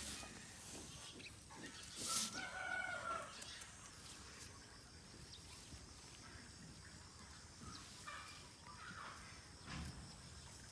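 Chickens clucking faintly in a farmyard, with a sharp knock about two seconds in.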